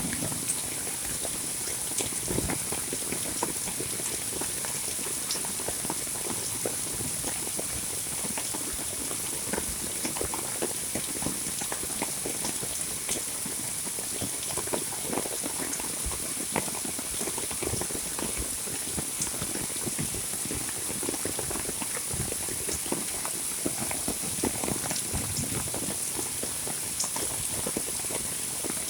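Heavy monsoon rain falling steadily: a dense, even patter, with many sharp individual drops ticking and splashing out of it at irregular times.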